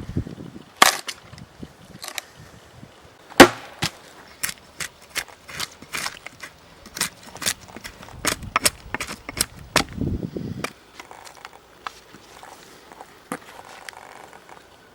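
Dry rotten wood being broken apart by hand: a run of sharp, irregular cracks and knocks with some rustling, thinning out in the last few seconds.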